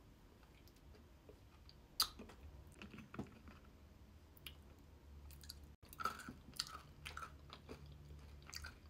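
Close-miked chewing and crunching of candy-shelled chocolate mini eggs with chocolate mousse. There is a sharp click about two seconds in and scattered small crunches later on.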